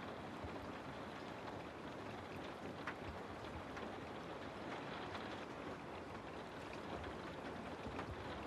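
Steady rain falling through forest trees, with individual drops pattering close by now and then.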